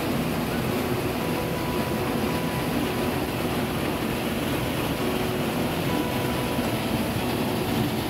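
Small waterfall: water pouring steadily down a narrow rock chute into a pool, an even, continuous rush with no breaks.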